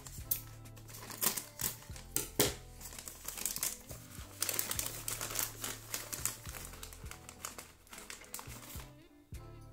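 Thin plastic bag crinkling as it is opened and handled, with small plastic game pegs clicking against each other as they are tipped out, over background music.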